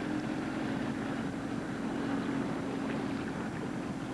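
Boat motor running at a steady trolling speed, a constant drone with a little wind and water noise.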